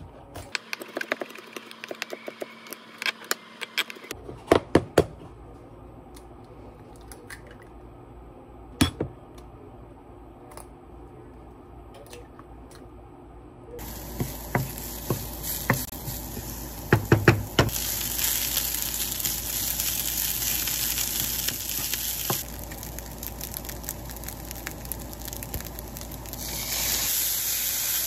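Santoku knife chopping garlic on a plastic cutting board, a run of quick taps with a few louder knocks. About halfway through this gives way to garlic and then rice sizzling in a non-stick frying pan, a wooden spoon knocking and scraping the pan as it is stirred.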